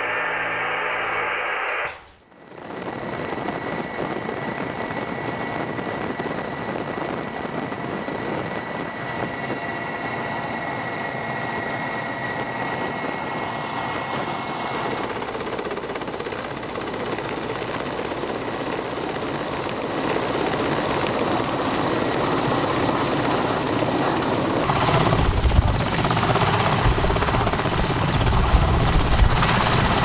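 Music cuts off about two seconds in. After it comes the steady running noise of an engine with a thin, high, steady whine. It grows louder in the last third, with a deep rumble joining in near the end.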